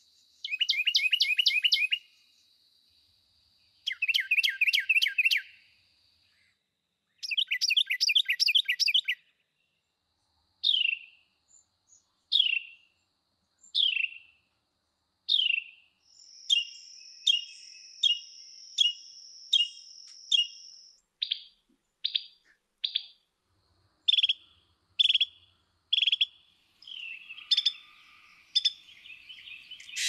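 Recorded Carolina wren: three loud, rapid rolling songs of repeated 'tea-kettle' phrases in the first nine seconds. These are followed by a string of separate short down-slurred call notes, then quicker sharp repeated notes, with a harsh chattering starting at the very end.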